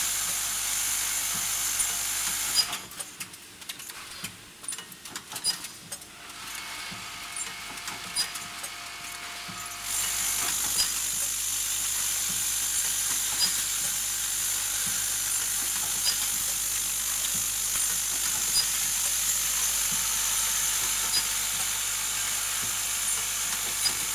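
Automatic single spot welding machine for tin cans working through its cycle: a steady machine hum and hiss with a sharp crack about every two and a half seconds as each spot weld fires. A quieter stretch a few seconds in carries only scattered small clicks of the mechanism.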